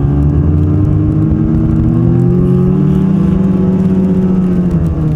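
Snowmobile engine running, its pitch rising gently over the first few seconds and then falling away near the end.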